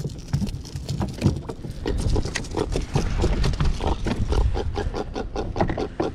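A small jack crevalle grunting on the kayak deck after being landed, a rapid, uneven run of short croaking pulses.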